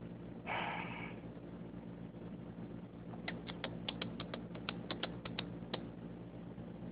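A short burst of noise about half a second in, the loudest moment, then a quick run of about a dozen sharp clicks lasting some two and a half seconds, over a steady low hum.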